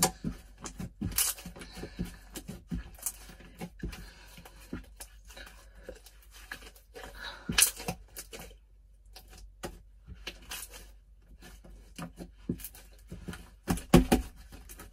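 Hands kneading and stretching a glue-and-borax slime, giving irregular sticky clicks, pops and tearing sounds, with a brief lull a little past the middle and louder snaps about seven and a half seconds in and near the end.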